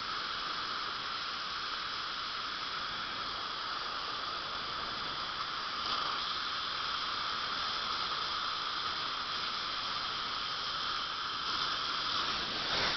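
Dental drill running steadily with a hissing spray, cutting and cleaning out the enamel walls of an incisal-edge trough preparation; it cuts off at the very end.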